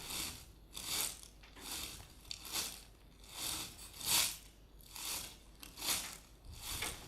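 Foley footsteps: about nine crunching steps at an even walking pace, made with objects to imitate walking.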